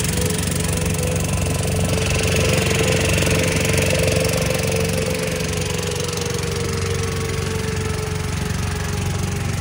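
Motorboat engine running steadily under way: a low, even drone with a higher whine above it that sags slightly in pitch over the last few seconds, over the hiss of water along the hull.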